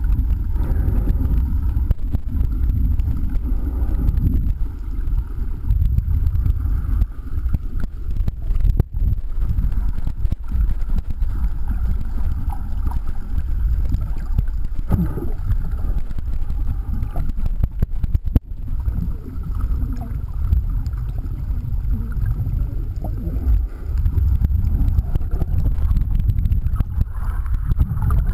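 Low, continuous muffled rumble of water moving against an underwater camera housing while snorkeling.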